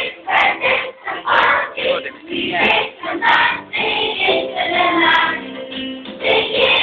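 A group of children singing a song together in chorus, loud and in short phrases with brief breaths between them.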